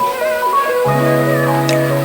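Background music: held chords under a melody of short stepping notes, with a new low chord coming in just under a second in.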